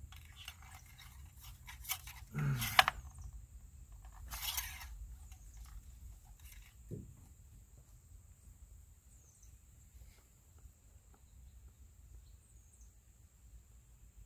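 Engine oil dipstick being pushed into its tube and drawn out again: light metal clicks and scrapes, with the loudest knock and rustle about two and a half seconds in and another scrape around four and a half seconds.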